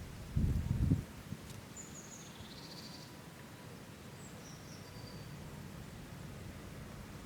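Small birds chirping in a spring forest: a few short, high calls about two seconds in and again near the middle, over a faint steady outdoor hiss. A brief low rumble near the start is the loudest sound.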